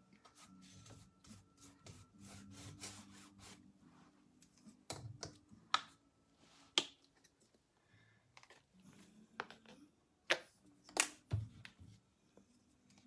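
Paintbrush strokes scratching across canvas in quick runs during the first few seconds, then half a dozen sharp clicks and taps spread through the rest.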